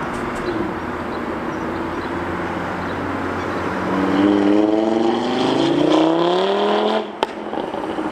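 Audi TT coupé engine pulling hard as the car accelerates past, its note climbing in pitch over about three seconds. The engine note cuts off abruptly about seven seconds in, followed by one sharp crack.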